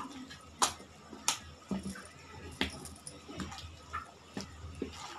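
A hand squishes and kneads a wet mixture of chopped colocasia leaves and moong dal paste in a steel bowl, with sharp, irregular clinks of glass bangles, a few times a second or less.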